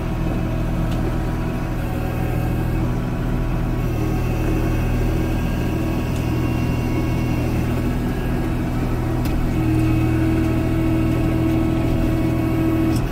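Kubota L3560 tractor's four-cylinder diesel engine running steadily, growing a little louder about ten seconds in.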